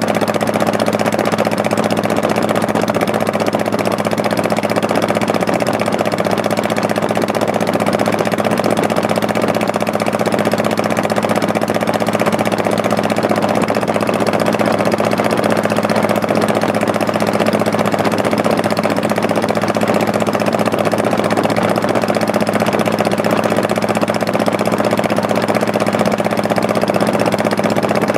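Honda Shadow Spirit 1100's V-twin engine running at a steady, unchanging pitch, with a constant hiss over it.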